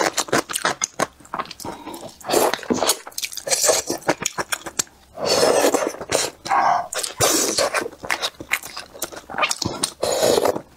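Close-miked eating of soft boiled dumplings: chewing with wet mouth clicks and smacks, broken by a few longer rushing noises.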